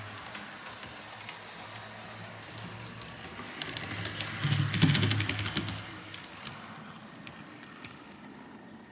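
HO-scale model diesel locomotive running on its track: a steady electric motor hum with a rapid clicking of wheels over the rails, growing louder around the middle and then fading away.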